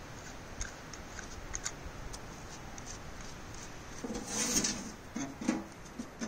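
Handling of a steel ammo-can stove and its bolt-on steel leg: faint small clinks, then a short scrape of metal about four seconds in as the can is tipped, followed by a few light knocks.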